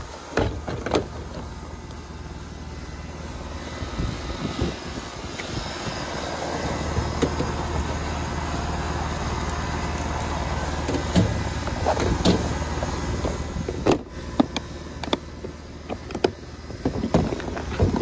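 Clicks and knocks of refrigerant hoses and a digital manifold gauge set being handled and packed into a hard plastic case, busier toward the end, over the steady low hum of a running air-conditioning condenser.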